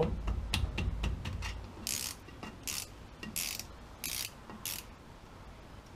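Socket ratchet loosening the 10 mm bolts that hold a drum-brake wheel cylinder to the backing plate: a few light clicks, then five short ratcheting bursts about two-thirds of a second apart.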